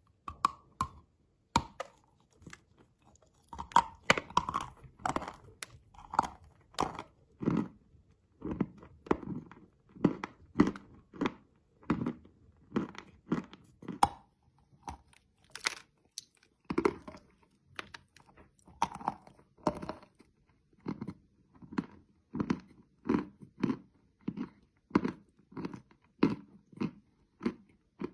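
Close-up crunching and chewing of hard chalk candy: a few sharp snapping bites, then steady crunchy chewing at roughly one to two crunches a second.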